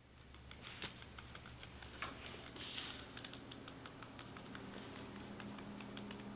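Small plastic toy pieces being handled, making light, irregular clicks and taps. There is a brief rustle a little before the middle.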